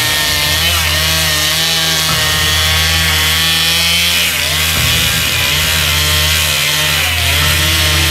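Large chainsaw running at full throttle, cutting through a dead pine trunk, its engine pitch wavering slightly under load.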